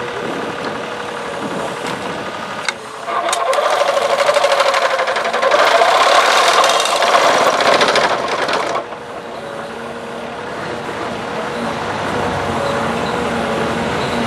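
Autoguide Postmaster vibrating post driver on a mini excavator driving a wooden fence post into the ground. Under the excavator's steady engine, the vibrator head starts about three seconds in as a fast, even buzzing rattle and runs for about six seconds. It cuts off, leaving the engine running.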